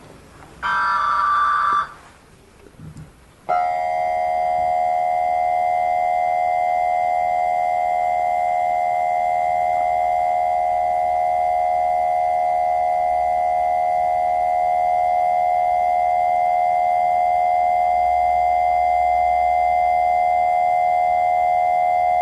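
Emergency Alert System test tones, pitched lower than normal: near the start a short burst of warbling data tones from the digital header, then about three and a half seconds in the two-tone attention signal comes on and holds steady and loud.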